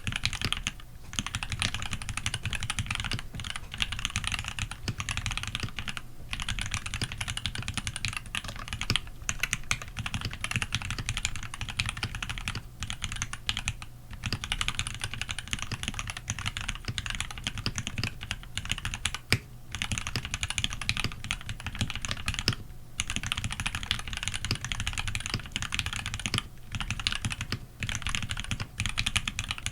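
Continuous fast typing on a custom Tx87se mechanical keyboard: lubed Tealios v2 linear switches in Cherry top housings, mounted on a brass plate and capped with GMK keycaps. The keystrokes come in a dense, uneven run of clicks with a few short pauses.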